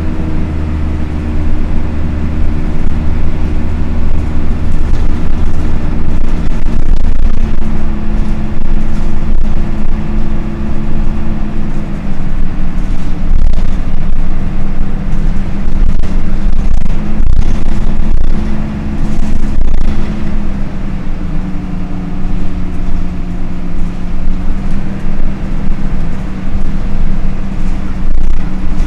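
Dennis Dart SLF bus's engine cooling fan running with the diesel engine, a loud steady drone whose pitch shifts a few times, with a deeper rumble that drops away about seven seconds in.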